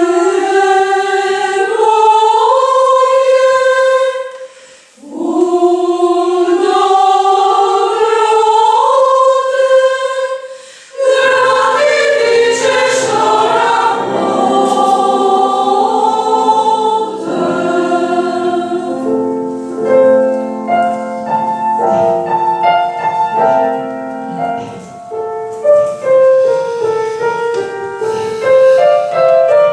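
Women's choir singing in several parts, two phrases with short breaths between them; about eleven seconds in a piano joins and accompanies the voices to the end.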